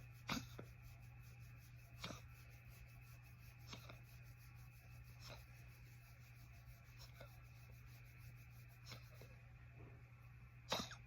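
A pet's short, sharp coughs in a coughing fit, one about every second and a half to two, faint against near silence, with louder ones just after the start and near the end.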